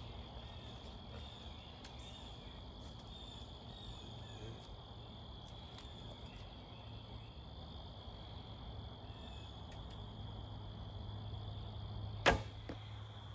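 Steady insect chirring, then about twelve seconds in a single sharp snap as a Browning Challenge recurve bow is shot, its string releasing the arrow. A fainter knock follows a split second later.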